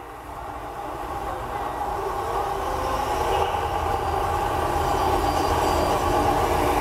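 Steady rushing, rumbling outdoor noise beside the Mirage volcano's lagoon and waterfalls, swelling over the first few seconds and then holding steady.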